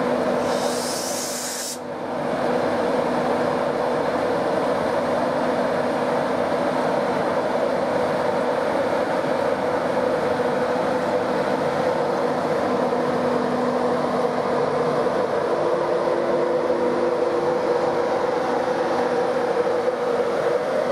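Class 91 electric locomotive running steadily as it pulls out, its cooling fans and traction equipment giving a continuous hum, with a short hiss near the start.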